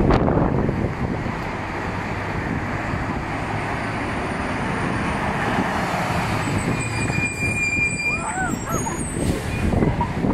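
Busy road traffic running steadily, with a heavy truck and tipper trailer passing close by, its engine and tyres growing louder near the end.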